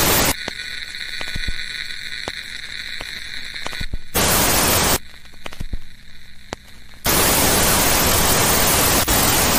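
Loud bursts of TV-style static hiss, used as a horror-glitch sound effect: a short burst at the start, another about four seconds in lasting about a second, and a long one from about seven seconds in. Between the bursts a quieter steady hum with a high whine and scattered clicks.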